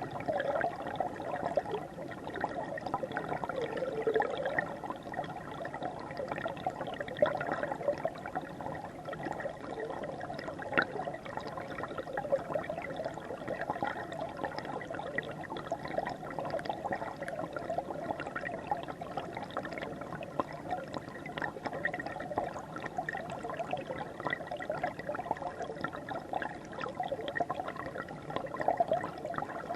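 River water flowing steadily over the stream bed, with many small gurgles and splashes.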